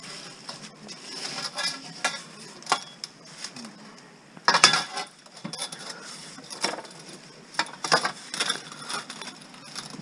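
Long aluminum pipes clanking and scraping against each other as they are handled, an irregular string of metallic knocks with the loudest clatter about halfway through.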